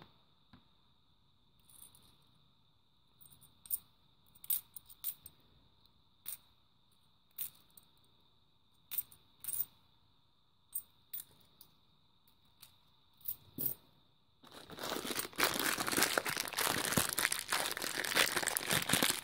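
Loose 50p coins clicking against each other now and then as they are handled in the hand, then, about three-quarters of the way through, a clear plastic coin bag crinkling continuously and louder as it is handled.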